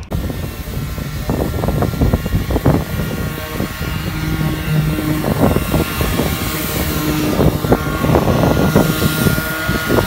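Electric polishing machine running, a steady motor drone with irregular knocks and scuffs as it works over a window.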